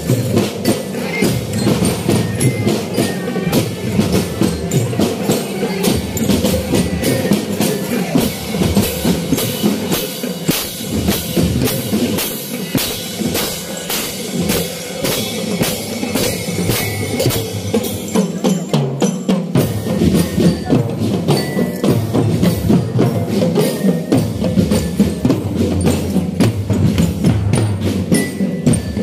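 Marching band drumline playing a steady, fast rhythm on snare and bass drums, with a bell lyra (marching glockenspiel) ringing a melody over it.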